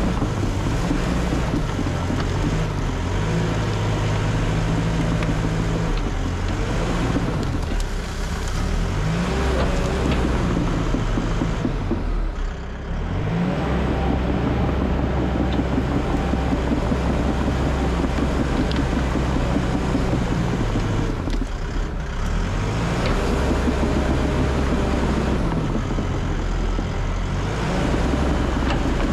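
Cat D3 bulldozer's diesel engine working under load as the blade pushes brush piles. The engine note rises and falls with the load, and drops briefly twice.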